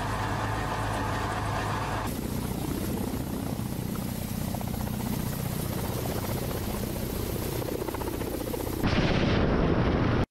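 Kamov Ka-52 attack helicopter's coaxial rotors and turboshaft engines running, with a steady rotor beat and a thin high whine. The sound changes abruptly about two seconds in. About nine seconds in it turns suddenly louder and harsher.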